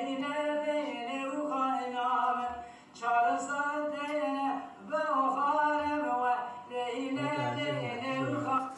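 A man singing dengbêj, unaccompanied Kurdish sung storytelling, in long, wavering held phrases with short breaks between them, played back through a television's speaker.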